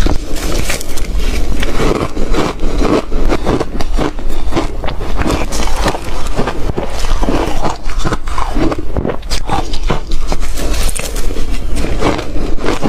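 Ice being chewed close to the microphone: rapid, irregular crunching and cracking, several crunches a second without a break.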